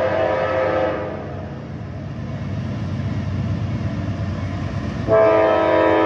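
Approaching diesel freight locomotive sounding its multi-chime air horn for a grade crossing. The chord of several tones stops about a second in, leaving the low rumble of the oncoming train, then the horn starts again abruptly near the end, louder.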